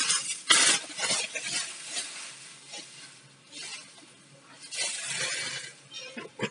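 Plastic bubble-wrap packaging rustling and crinkling in irregular bursts as a fan blade is handled and unwrapped, with a quieter stretch in the middle.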